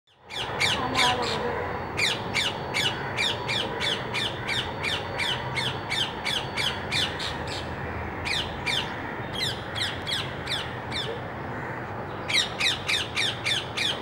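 Rose-ringed parakeet giving a rapid series of shrill, downward-sliding screeches, about three a second. The calls come in runs broken by short pauses, with a longer lull about two-thirds of the way through before the calling picks up again.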